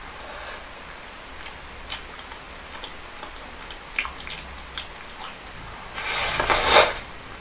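Close-mic chewing of a soft meatball, with scattered wet mouth clicks. About six seconds in comes a loud wet sound lasting about a second as another sauce-coated meatball goes into the mouth.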